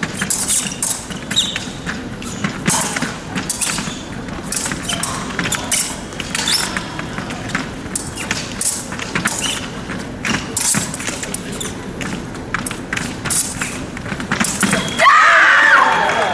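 Épée fencing bout: blades clinking and fencers' feet stamping and tapping on the piste in quick, irregular knocks. A loud yell breaks out near the end.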